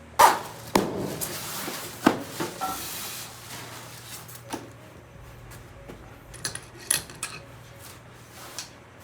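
Hard objects being handled during an air-conditioner installation: a series of sharp knocks and clacks with a scraping rub between them, the loudest right at the start and about two seconds in.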